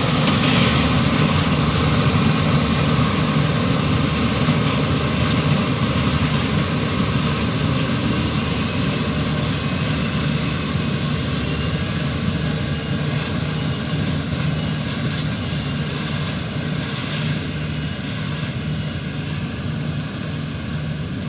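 Inder 930 Deluxe combine harvester running steadily with a low engine hum, slowly getting quieter over the last several seconds.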